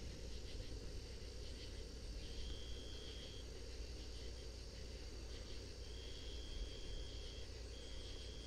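Crickets trilling: a high steady trill that comes in long stretches of a second or so with short breaks, over a constant low background rumble.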